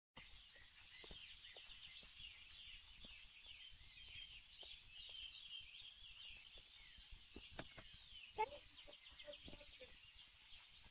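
Faint outdoor birdsong: small birds chirping and twittering continuously, with a few lower, louder calls a little past the middle.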